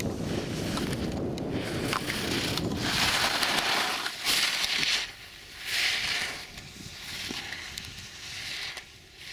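Slalom skis carving turns on snow: a run of scraping hisses about a second apart, one for each turn. Wind buffets the microphone in the first few seconds.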